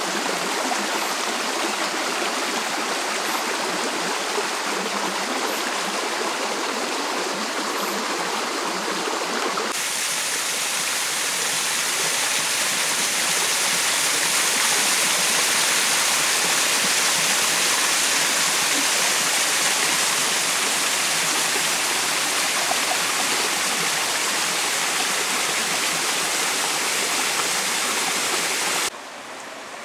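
Steady rush of running water; about a third of the way in it turns brighter and a little louder, the splash of a small waterfall tumbling over rocks into a stream. Near the end the sound drops off suddenly to a quieter flow.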